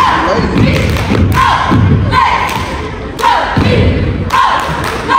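Cheerleading squad shouting a cheer in unison, with rhythmic stomps and claps that land roughly once a second.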